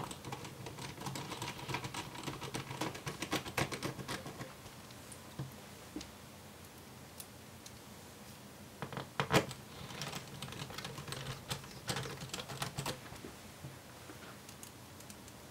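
Quick small clicks and taps of a precision screwdriver with a Torx T5 bit driving screws into a laptop's base panel, in two spells: during the first four seconds or so, and again from about nine to thirteen seconds in.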